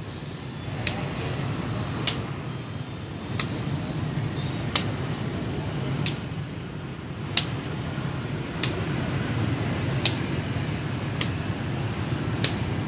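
A shuttlecock (đá cầu) kicked back and forth between two players: a sharp tap about every second and a quarter, in an even rally of about ten kicks. A steady low hum runs underneath.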